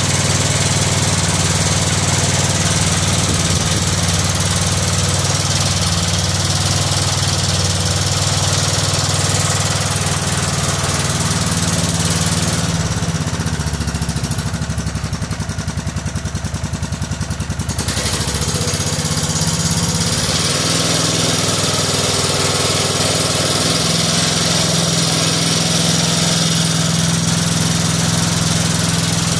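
Kohler Command CH16S single-cylinder engine on a Cub Cadet 2166 garden tractor, running steadily on its newly fitted ignition module. For a few seconds about halfway through it goes quieter and duller, then picks up again.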